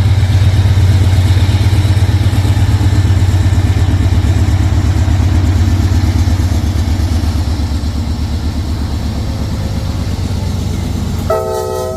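Diesel locomotive engine running with a low, steady throbbing drone that slowly fades over the latter half.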